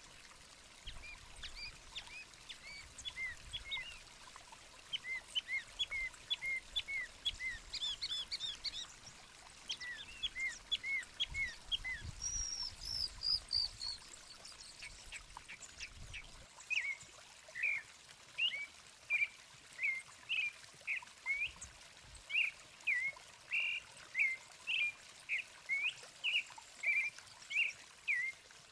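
Chalk-browed mockingbird singing a varied run of short chirping notes, with a quick falling series of higher notes about halfway through. From about 16 seconds in, a different bird, a creamy-bellied thrush, gives a steady series of short notes, roughly two a second.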